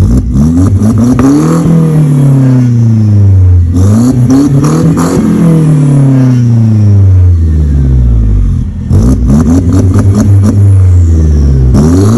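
Mercedes C180's 1.8-litre turbo four-cylinder, heard through its tuned aftermarket exhaust with AMG-style quad tips, free-revved three times while parked: each rev climbs quickly, with a crackle, then falls slowly back. A fourth rev starts near the end.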